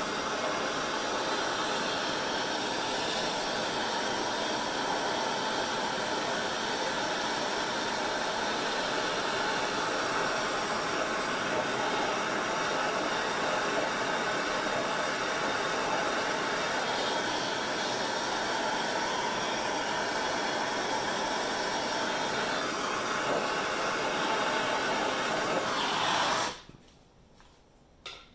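A heating tool runs with a steady rushing hiss, heating a stuck rear oil-galley plug in a small-block Chevy 305 block to expand the metal around it so the plug will come out. The hiss cuts off suddenly near the end, and a single click follows.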